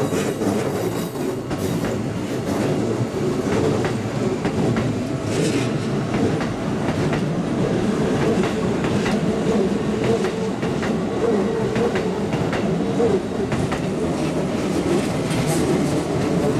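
Keikyu 800 series commuter train passing close by, with a steady rumble and wheels clicking over the rail joints.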